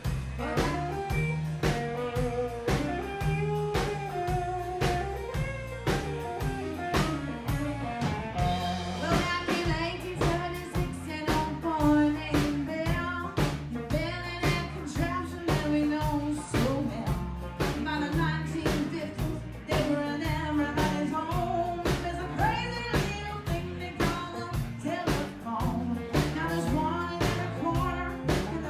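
Live band playing with a steady drum-kit beat under electric and acoustic guitars, and a woman singing lead.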